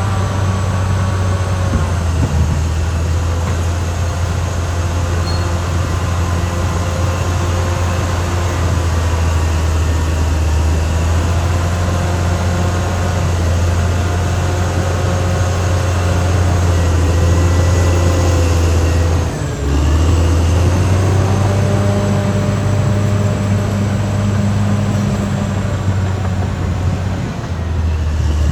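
Caterpillar D6R XL bulldozer working: a steady diesel engine drone with wavering metallic whines from the running gear over it, briefly dropping about two-thirds of the way through.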